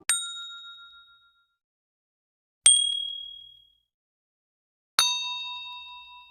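Three separate bell-like ding sound effects, each struck once and ringing out as it fades. The second is the shortest, and the third is lower and rings the longest.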